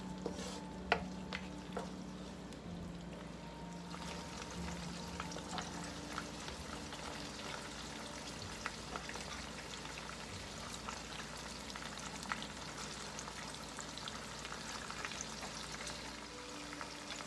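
Browned onions and raw chicken pieces sizzling in hot oil in a nonstick wok over a high gas flame; the sizzle grows louder about four seconds in as the heat comes up, with occasional soft clicks of a wooden spoon and the chicken going into the pan.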